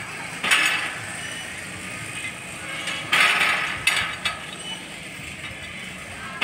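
Metal discs on axles rolling along the steel pipe rails of a rolling-race exhibit, with several sharp metallic clanks: one about half a second in, one at about three seconds and two more close together near four seconds.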